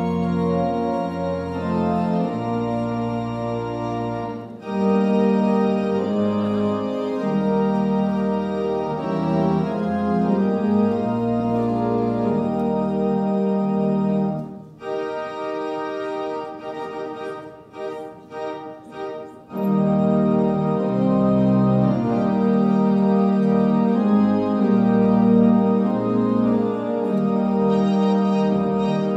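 Organ playing processional music in held chords, dropping to a quieter, broken-up passage about halfway through before the full sound returns.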